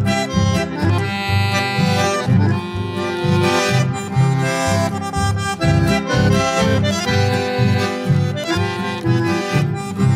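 Background music with a steady bass beat.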